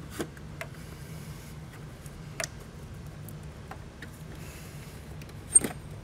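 Light plastic clicks and soft scraping as the engine control module and its connector are worked against the retaining detents of their plastic housing, ending in one sharp, loud snap about five and a half seconds in.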